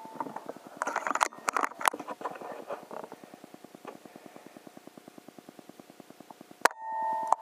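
A single air rifle shot near the end: a sharp crack followed by a short ringing tone. Before it come rustling in vegetation and then a fast, even ticking, about ten ticks a second.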